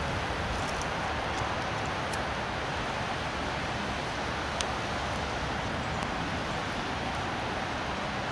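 Steady, even hiss of falling rain, with a few faint ticks.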